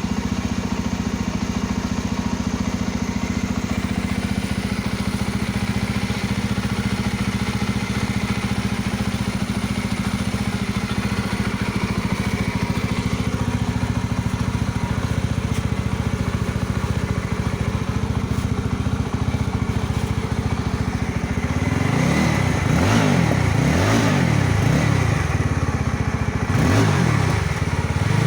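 Yezdi Roadster motorcycle's single-cylinder engine idling steadily, then blipped with the throttle about five times in quick succession near the end, the revs rising and falling each time.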